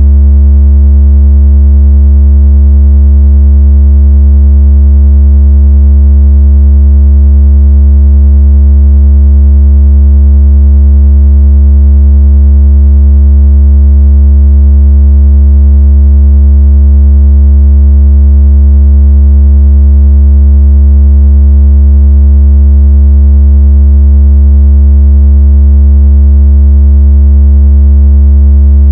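Loud, steady, very deep electronic tone with a ladder of faint overtones, holding one unchanging pitch. It is a synthetic bass tone played to vibrate a phone speaker and shake water out of it.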